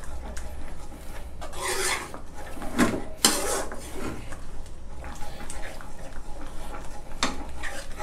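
Metal spoon stirring thick salted-egg-yolk sauce in a non-stick frying pan, scraping and rasping against the pan in irregular strokes, with a few sharper scrapes about three seconds in and again near the end.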